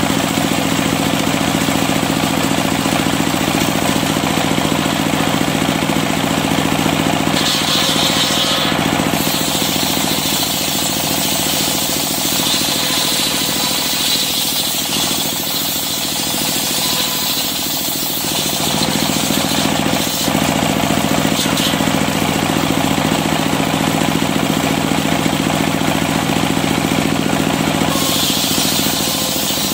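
Large circular saw bench (serkel) ripping African wood (Maesopsis) into planks, with a steady engine hum under it. A higher cutting hiss from the blade comes in about seven seconds in and drops out near the end, when the blade spins free.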